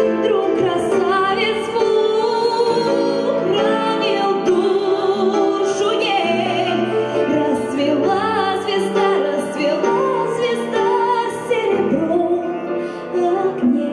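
Women singing a melodic song with vibrato on held notes, accompanied by a grand piano.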